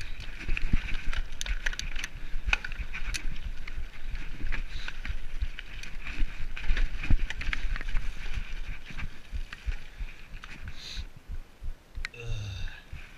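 Mountain bike running fast down a rough, rocky trail: the bike clatters and rattles over roots and rocks with many sharp knocks, over steady tyre and wind rumble. Near the end comes a brief high-pitched squeal.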